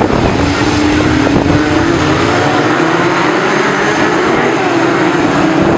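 A pack of BriSCA F2 stock cars racing through a bend, several engines running hard together, with one held engine note rising slightly and then steadying.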